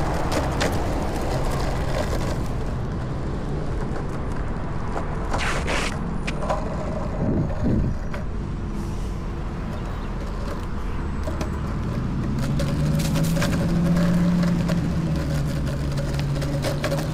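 Road traffic: a steady rumble with a motor vehicle's engine hum that swells about two-thirds of the way through as it passes, and a few short knocks near the middle.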